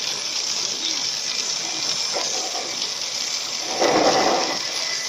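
Steady hiss of heavy rain and wet road noise, with one louder whoosh lasting under a second about four seconds in.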